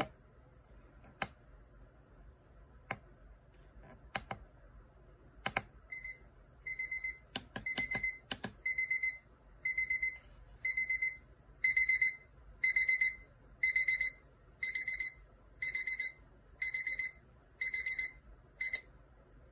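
Digital alarm clock radio's beeping alarm: high electronic beeps in quick groups about once a second, starting faint and turning much louder about halfway through, then stopping. Before and among the first beeps come several sharp plastic button clicks.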